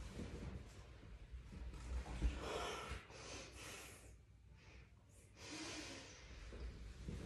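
A man breathing hard and forcefully in short bursts under the effort of barbell squats, with one sharp low thump a little over two seconds in.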